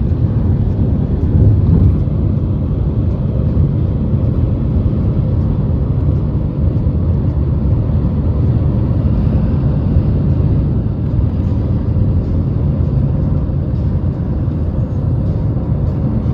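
Steady low rumble of a vehicle on the move, with road and engine noise that stays constant throughout.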